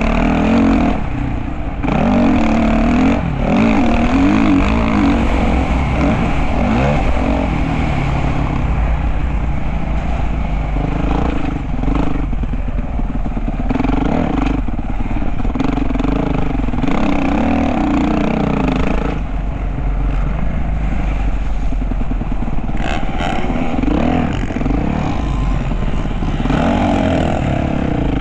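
Motocross dirt bike engine revving under riding, its pitch rising and falling again and again as the throttle opens and closes.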